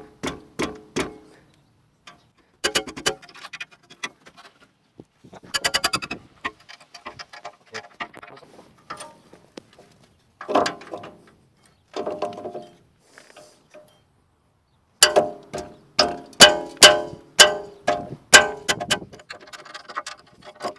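Socket ratchet clicking in bursts of rapid ticks, with pauses between, as an 18 mm rear brake caliper bracket bolt is undone. The longest run of clicks comes near the end.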